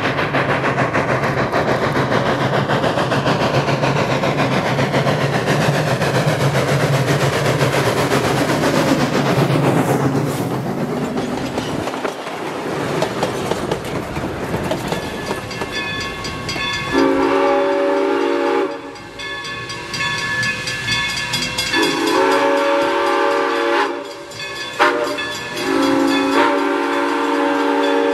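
Steam train passing close by, the locomotive working and its cars rolling over the rails. In the second half a steam whistle sounds several long blasts, several notes together, the last still sounding at the end.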